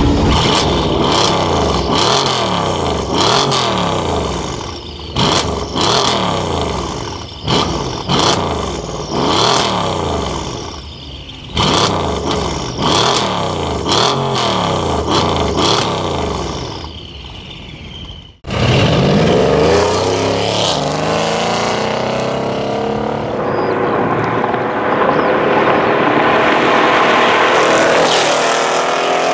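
Tuned Mercedes-Benz E63 AMG S twin-turbo V8 blipped hard in place about once a second, with sharp pops and cracks from the exhaust as the revs fall. After an abrupt cut about two-thirds of the way through, the engine pulls hard under acceleration, its note climbing.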